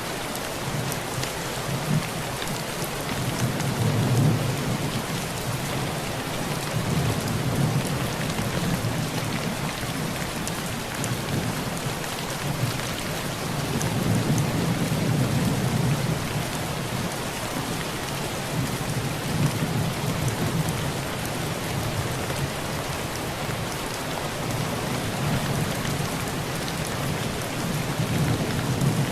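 Heavy rain falling steadily on a tin roof, with low thunder rumbling in several long swells that rise and fade.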